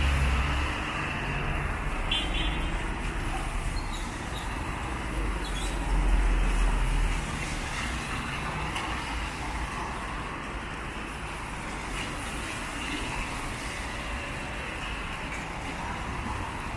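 City traffic passing on a wet avenue: car engines and tyres hissing on wet asphalt. A vehicle passing close brings a louder low rumble about six seconds in.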